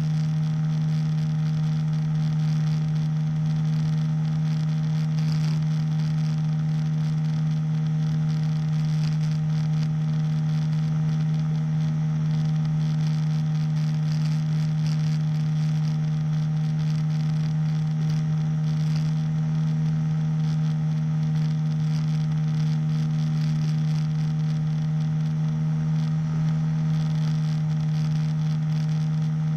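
Small engine of a powered hang-glider harness running steadily at a constant throttle, an even drone with no change in pitch.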